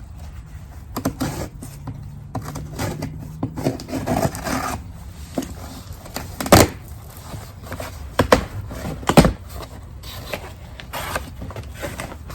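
Handling noises: scraping and rustling with several sharp knocks, the loudest about six and a half seconds in and two more a couple of seconds later.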